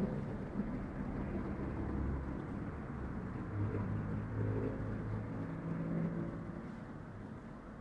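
Low rumble of a motor vehicle engine running, with a steadier pitched hum swelling from about three and a half seconds in and fading near the end.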